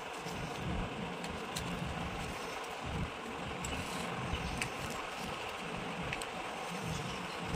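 A knife cutting soft besan barfi in a steel plate, with a few faint ticks where the blade meets the metal, over a steady background hiss and low rumble.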